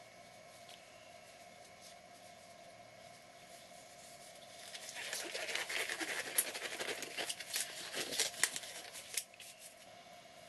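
Rustling, crackling handling noise, a dense run of small clicks and crinkles lasting about four seconds from about the middle, over a faint steady hum.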